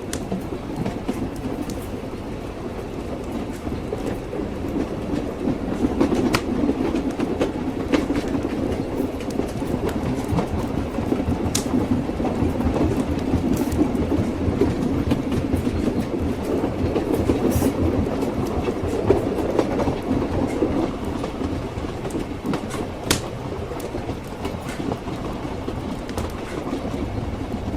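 Train wheels clattering rhythmically over the rails: a steady rumble of a moving railway carriage, with a few sharp clicks now and then.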